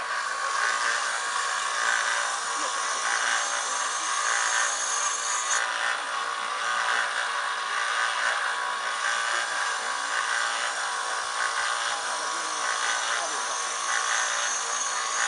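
Small electric belt grinder running with a steel longsword edge held against its 240-grit belt, giving a steady grinding hiss of abrasive on steel that swells and eases slightly as the blade is drawn along.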